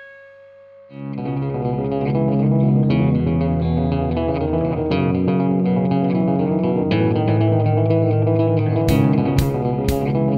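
Guitar-led background music that starts about a second in, with a steady drum beat coming in near the end.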